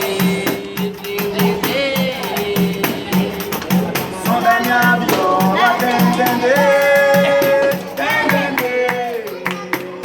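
Capoeira music: a voice sings long held, gliding notes over a steady percussion beat with a rattle or tambourine-like shake.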